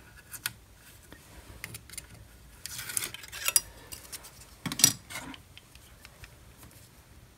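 Scattered metal clinks and light rattling from hand tools and fixings being handled at a drill press's DRO read-head bracket, with a scraping rustle about three seconds in and a sharp knock just before five seconds in, the loudest sound.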